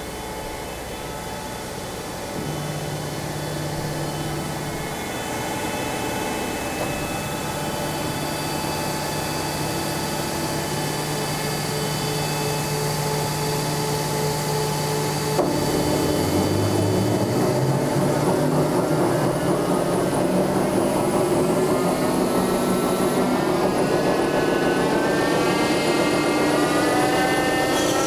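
Test stand running an NR-22 fuel pump from a MiG-21 engine during its adjustment and acceptance test. A steady mechanical hum with several whining tones grows gradually louder. About fifteen seconds in a click comes, after which the tones step up in pitch and rise and waver as the rig speeds up.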